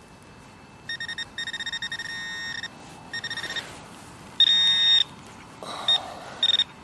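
Metal detector's electronic target tone: a run of rapid short beeps, then longer steady buzzes from about four and a half seconds in, as it is worked over a metal target in a freshly dug plug of soil. Soil crumbles and rustles between the tones.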